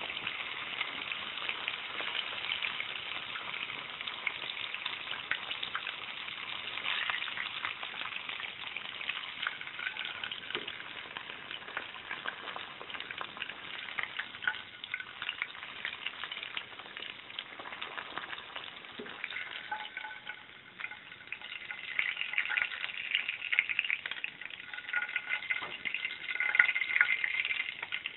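Rolls deep-frying in hot oil in a small pan, a steady crackling sizzle. The crackling gets louder and sharper near the end, as the pieces are turned and lifted out of the oil with metal tongs.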